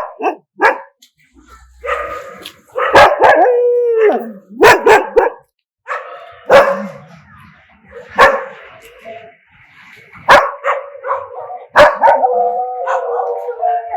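Dogs barking in separate loud barks spaced a second or two apart. About four seconds in comes a whine that slides down in pitch, and near the end a drawn-out whining howl.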